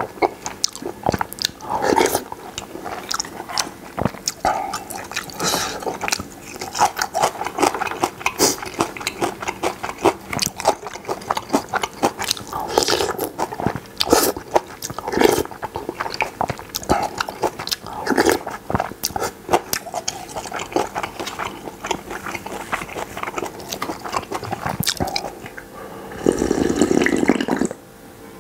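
Close-up eating sounds: slurping and chewing spicy Buldak stew noodles with cheese, with wooden chopsticks clicking against the bowl. Near the end, a long slurp of broth drunk straight from the tilted bowl.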